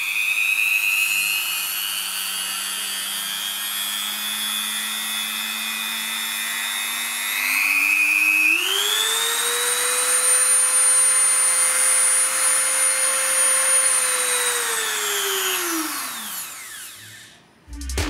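TASP MMD002 130 W rotary tool spinning free with no load, a steady motor whine. About halfway through its pitch steps up twice as the speed is raised, then near the end it is switched off and winds down with a falling pitch until it stops.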